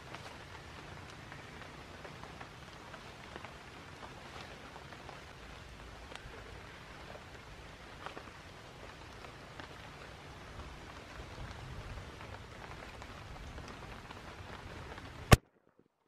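Steady rain falling, with many small scattered drop ticks. Near the end a single sharp click, and the sound cuts out.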